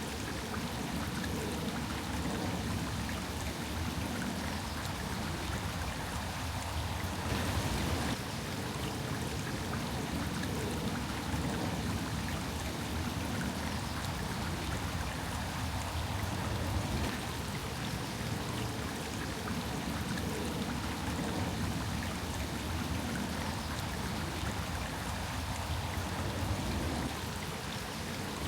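Water running in a garden stream, a steady rush and trickle, with a brief louder stretch about seven seconds in.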